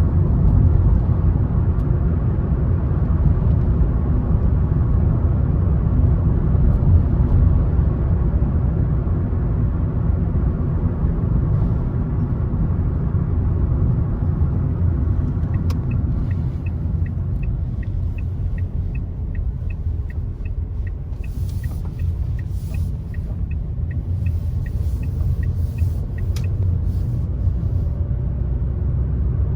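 Car road noise: a steady low rumble of tyres and engine while driving. In the second half a light, regular ticking, about three ticks a second, runs for about ten seconds.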